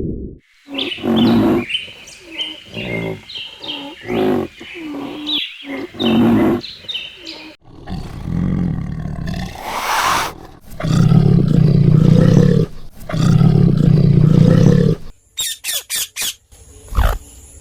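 A run of animal calls, one after another, with two long, loud calls past the middle and a quick series of clicks near the end.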